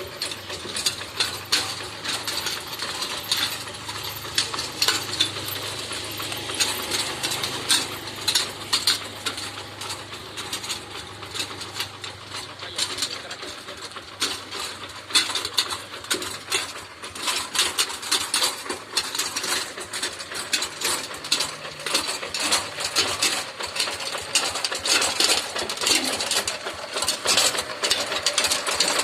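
Rice-field tractor running, with a low engine hum under a dense, uneven metallic clatter.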